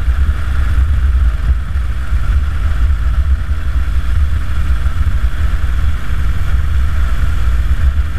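2009 Harley-Davidson Dyna Super Glide's V-twin engine running at a steady cruise, mixed with a low rush of wind on the bike-mounted microphone. The pitch holds steady throughout, with no revving or gear change.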